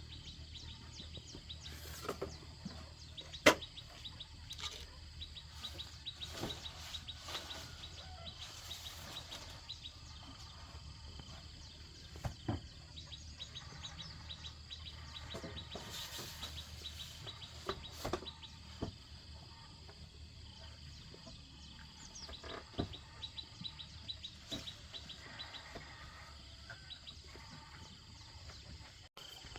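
Forest ambience: birds chirping and insects trilling steadily, with scattered sharp knocks, the loudest about three and a half seconds in.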